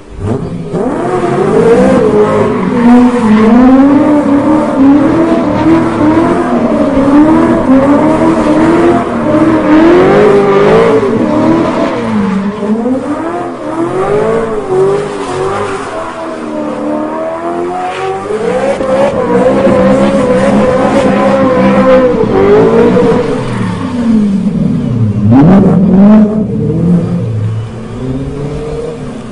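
BMW M3 (E92) V8 engine revving hard while the car drifts in circles, the revs rising and falling constantly. About three-quarters of the way through, the revs drop sharply and climb back up.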